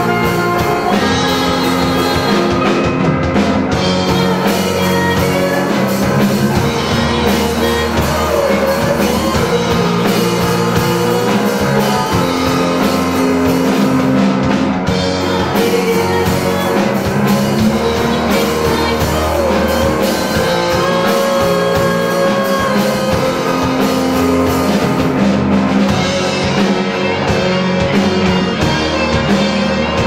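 Live rock band playing: a female singer over electric guitars and a drum kit.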